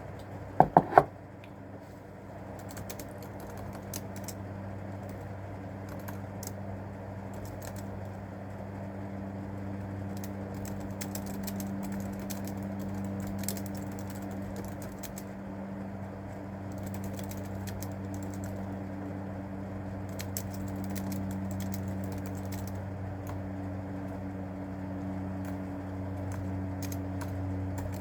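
Typing on a keyboard, irregular light key clicks, over a steady low hum. Three sharp, loud knocks come close together about a second in.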